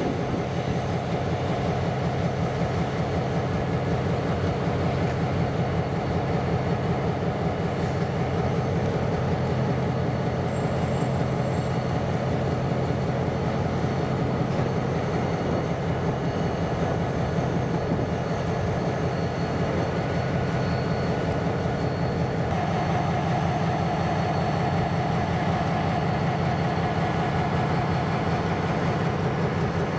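Diesel-hauled freight train running, a steady heavy sound with a low engine tone under it; the tone shifts a little about two-thirds of the way through.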